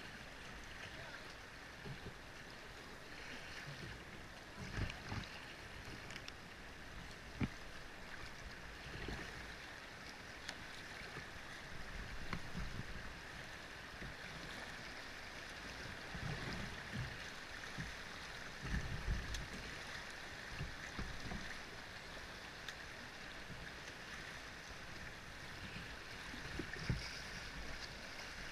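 River water rushing and splashing around a canoe running riffles, a steady hiss with occasional low thumps, the sharpest about seven seconds in and near the end.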